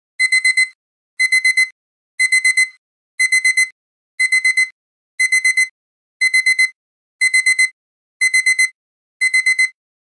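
Electronic alarm-clock beeping: groups of four quick high-pitched beeps, repeating once a second. It is the finishing alarm signalling that the countdown timer has reached zero.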